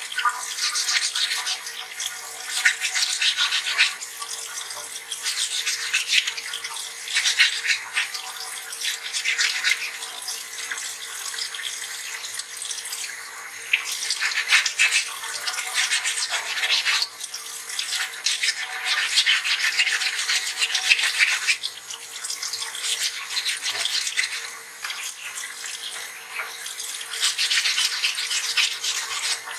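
Wet-and-dry 220-grit sandpaper scrubbing back and forth against a stone dental model under a running tap, with the tap water splashing steadily. The scratching comes in spells of a few seconds with short let-ups between them.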